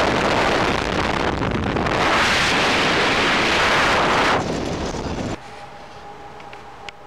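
Loud rushing wind on the microphone of a Quad City Challenger ultralight during its landing roll on grass, with the aircraft's engine noise mixed into the roar. About five seconds in it drops off abruptly to a much quieter background with a faint steady hum.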